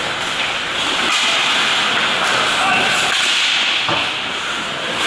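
Ice hockey play heard through the rink glass: a steady hiss of skate blades on the ice, with a few short clacks of sticks and puck, one near the end.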